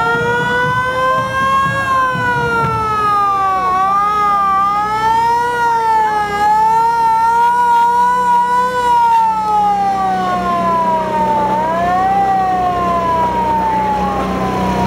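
Fire truck siren wailing, its pitch sliding slowly up and down in long sweeps, fading near the end as it passes. A steady low hum runs beneath it.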